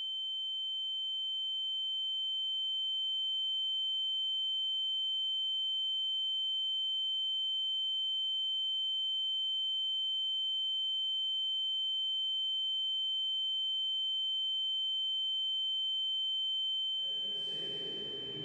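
A steady, high-pitched pure electronic tone, like the ringing in the ears that films use to show panic, with a fainter lower tone beneath it. It swells over the first few seconds, holds level, and fades near the end as fuller sound comes in.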